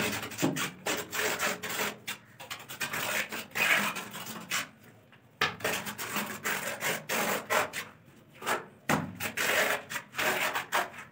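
Trowel scraping and spreading wet cement mortar across the ridged back of a ceramic wall tile, in repeated irregular strokes with a short lull about halfway through.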